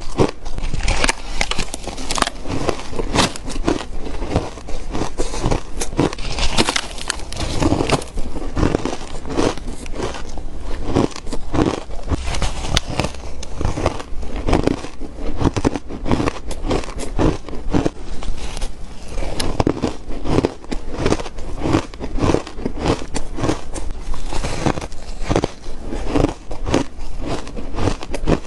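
Crunchy crushed ice being bitten between the teeth, one crunch after another, several a second, with no break.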